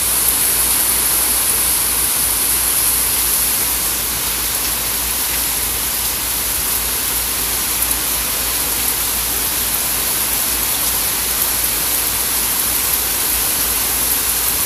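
Heavy rain pouring down in a steady hiss during a thunderstorm, with a few faint ticks of drops.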